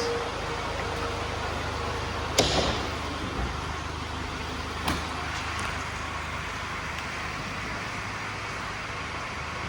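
Mercedes Sprinter 315 CDI van running with a steady low hum. A loud knock comes about two and a half seconds in, and a lighter one about two and a half seconds later.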